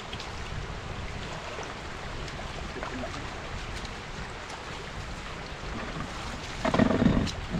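Shallow floodwater running steadily across a paved road, with wind noise on the microphone. A brief, louder low rumble near the end.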